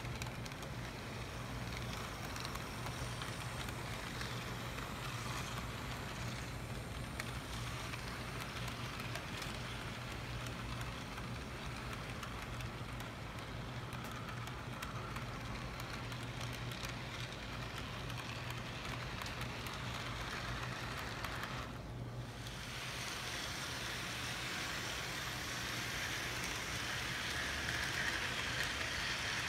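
HO scale model freight train rolling along the track: a steady rushing rattle of small wheels on the rails over a low hum, louder near the end as the cars pass close by.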